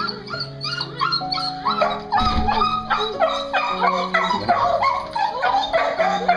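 A dog yipping and whining in quick, repeated short calls over background music.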